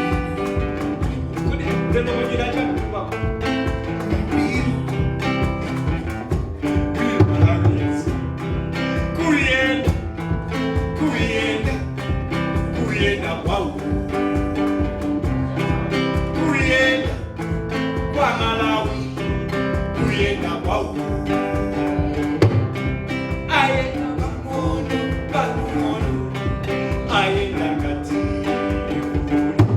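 Live acoustic music: an acoustic guitar playing a steady, even rhythm, with a man singing in phrases that come and go over it.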